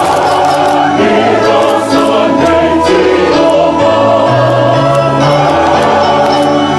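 Choir singing a Fijian hymn in harmony, holding sustained chords that change about every second over a moving bass line.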